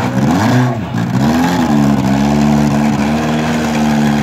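Front-wheel-drive demolition derby car's engine revving hard: the pitch swoops up and down twice in the first second and a half, then holds at high revs.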